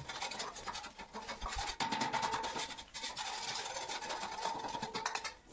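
Steamed dough pieces frying in a little oil in a kadhai over a low chulha flame, with a steady fine crackle and sizzle.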